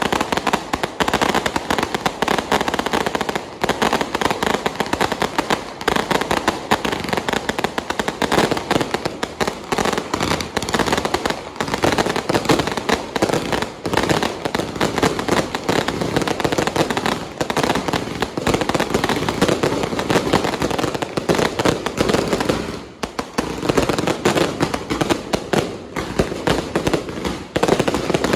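Aerial fireworks barrage with firecrackers going off continuously: a dense, unbroken run of pops, bangs and crackles. There are brief lulls about three-quarters of the way through.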